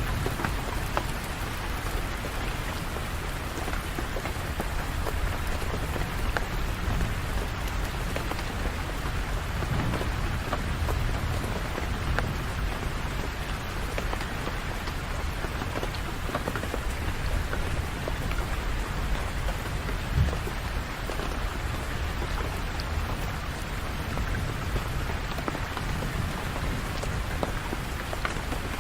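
Steady rain falling on hard surfaces, with scattered individual drops ticking through it and a low rumble underneath. One sharper drop or tap stands out about twenty seconds in.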